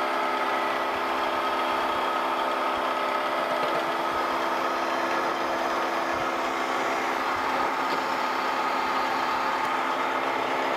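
Wells-Index vertical milling machine running steadily with a steady hum, its spinning cutter touching off on a metal wedge block clamped in the vise as the table is fed under it.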